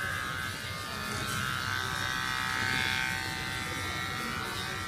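Corded electric pet hair clippers running with a steady buzz as they shave through a Persian cat's long white fur.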